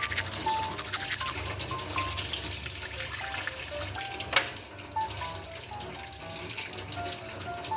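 Tap water running as a small washing machine inlet filter is scrubbed clean under it, with light scratchy scrubbing. A single sharp knock comes about four and a half seconds in.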